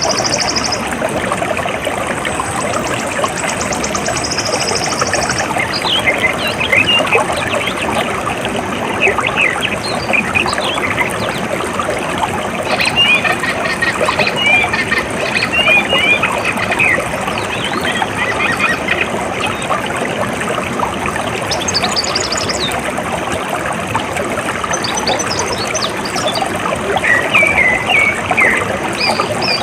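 Steady rush of flowing water, with small birds chirping in short, scattered calls over it. A rapid high trill sounds near the start.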